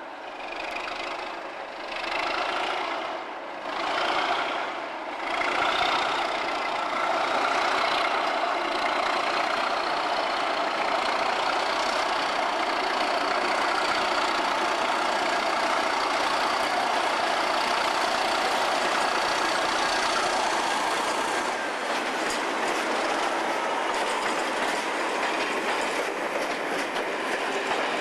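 Pair of Class 37 diesel-electric locomotives, each with an English Electric V12 engine, working hard as they pull away with a train. The sound swells over the first few seconds and then holds steady, with a thin high whine over the engine noise for much of it. Near the end the whine fades as the coaches roll by with a clickety-clack of wheels over rail joints.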